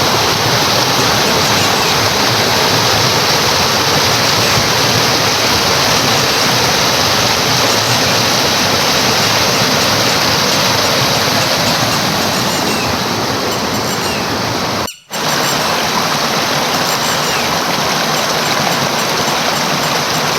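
Water of a monsoon stream rushing steadily, a loud, even hiss. It cuts out for a moment about fifteen seconds in, then carries on unchanged.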